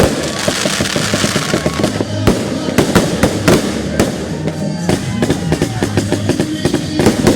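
Fireworks display: many sharp bangs of bursting aerial shells, with a spell of crackling about a second in. Music with a steady low bass plays along under them.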